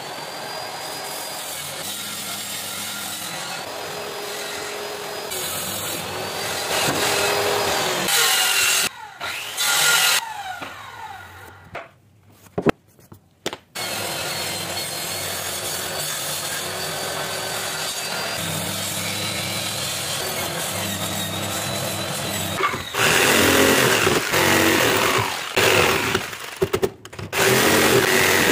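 Electric power saws cutting wood: a table-mounted circular saw runs steadily with a high whine, with a short break about halfway. Near the end a jigsaw cuts plywood in louder, uneven bursts.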